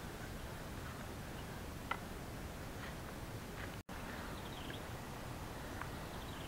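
Steady faint outdoor background hiss with a few short, faint high chirps from small birds.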